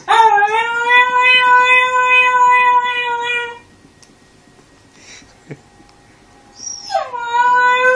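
A pet's long, steady, high howl, held for about three and a half seconds; a second, similar howl starts about seven seconds in.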